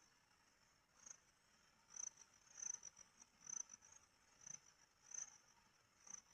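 Faint insect chirping: a thin, high-pitched chirp repeating about once a second.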